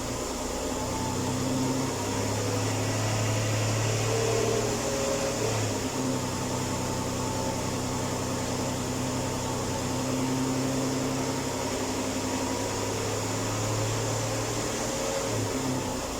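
Ford Escape engine running cold with a steady hum and hiss, carrying the strange cold-engine noise that several mechanics have not been able to trace.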